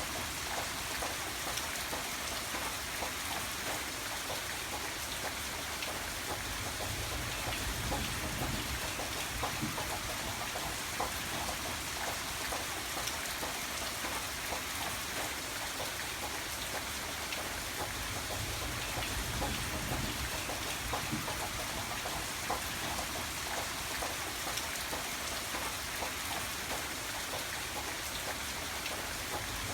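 Steady rain falling, a dense even hiss made up of countless small drop ticks.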